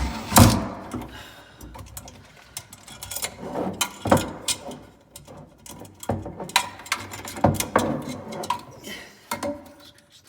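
Handling noise of screws and electrical-box hardware: two sharp knocks at the start, then scattered clicks, taps and rustling.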